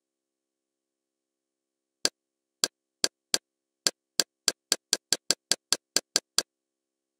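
Kodi menu navigation sound effects: a run of about sixteen short, sharp clicks starting about two seconds in. They come slowly at first, then speed up to about four or five a second, the sign of a menu or programme guide being scrolled step by step.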